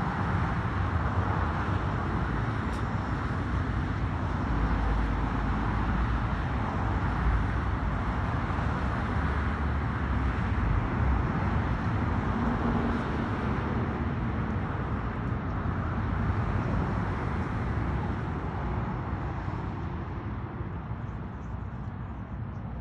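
Road traffic: a steady wash of car and tyre noise that swells and eases as vehicles pass, growing quieter near the end.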